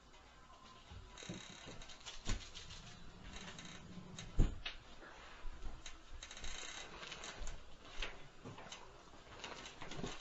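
Irregular knocks and thumps through the ceiling from someone stomping on the floor above, the heaviest a low thud about four seconds in, with lighter clicks and knocks scattered between.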